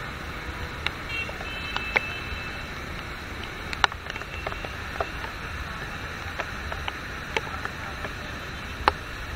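Heavy rain and city traffic on a wet road: a steady hiss of rain and tyres over a low rumble of engines, with scattered sharp ticks throughout and a brief high beep between about one and two seconds in.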